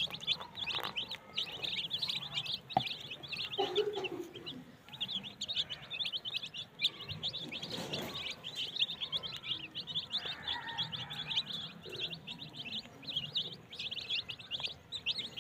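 A flock of young chickens (chicks) peeping all at once: a dense, continuous chorus of short, high cheeps that each drop in pitch.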